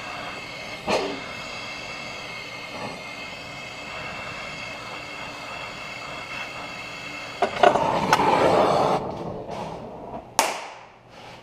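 Oxyacetylene torch flame hissing steadily while it heats the cast-iron cylinder head around a seized exhaust manifold stud. The torch rushes louder for a second or so near the end and then stops, and a sharp snap follows.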